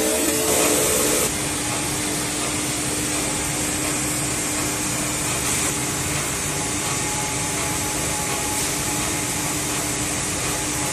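Background guitar music cuts off about a second in, leaving a steady machine noise: an even whirring hiss with a faint low hum, from running factory machinery.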